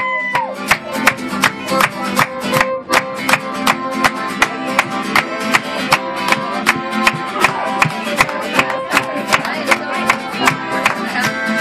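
Irish folk band playing an instrumental passage live: bowed fiddle, strummed acoustic guitar and accordion over a fast, steady beat.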